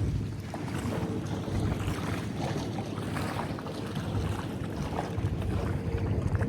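Wind buffeting the microphone: a steady, rough rumble with crackles.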